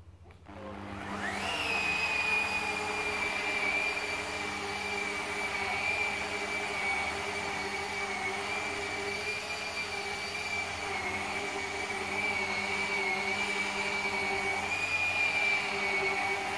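An electric motor spins up over about a second, then runs steadily with a high whine that wavers slightly in pitch.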